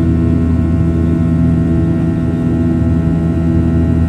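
Steady drone of a Boeing 737-900's CFM56-7B turbofan engines heard inside the cabin during the climb after takeoff: a low roar with several fixed humming tones.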